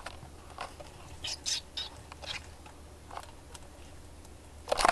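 Light, scattered rustling and scratching in a terrarium's loose coconut-fiber substrate as a white feeder mouse moves about, with a louder rustle near the end.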